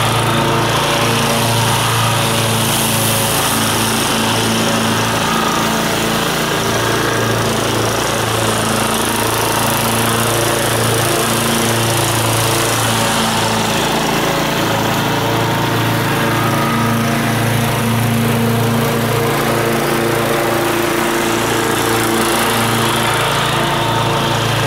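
Kawasaki FC420V single-cylinder engine of a Scag 36-inch walk-behind mower running steadily while the mower cuts grass.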